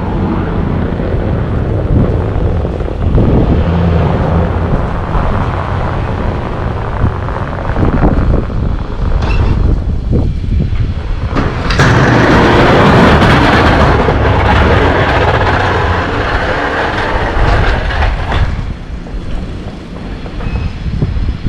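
Snow-plowing vehicle's engine running steadily, with a louder rushing noise from about 12 to 18 seconds in.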